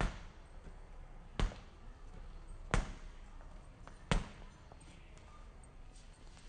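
Pink rubber playground ball bounced by hand on a hard floor: four single bounces, evenly spaced about a second and a half apart, the last about four seconds in.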